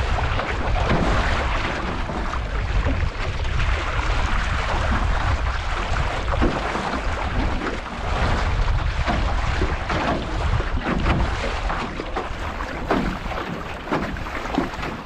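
Wind buffeting the microphone over water rushing and slapping along the hull of an aluminium Grumman 17 canoe under sail through chop, with frequent short splashes.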